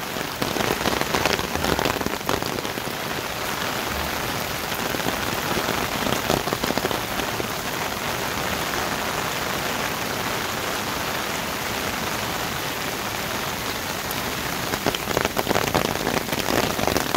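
Heavy rain falling steadily, an even hiss with sharper close ticks now and then that come more often near the end.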